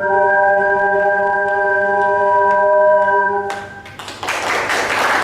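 Ocarina ensemble holding a final chord of several steady notes in harmony, which cuts off about three and a half seconds in; audience applause breaks out just after.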